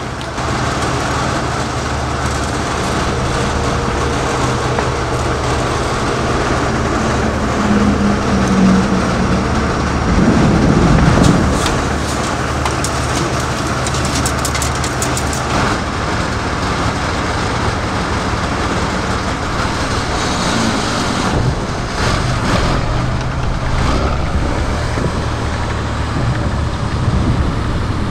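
Engine of a tracked armoured vehicle running with a steady low hum. It swells louder about a third of the way in, with a run of sharp clattering clicks just after.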